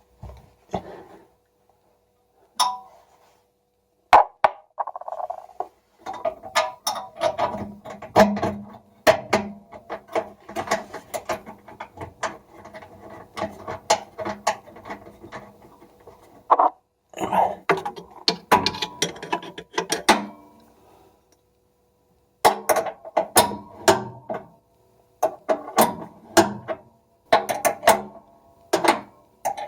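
Rapid, irregular clicks and knocks of hard plastic and metal parts being handled and worked together: a washing machine shock absorber being reassembled by hand. The clicks come in runs, with a pause of about two seconds some two-thirds of the way through.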